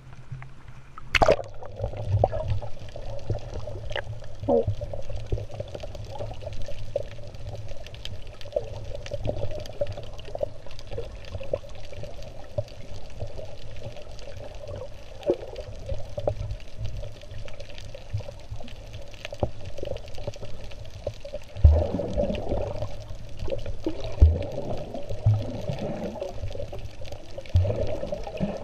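Sea water sloshing, gurgling and bubbling, heard underwater close to a swimmer doing front crawl. A sharp splash comes about a second in, and several low thumps and gurgling swirls come near the end.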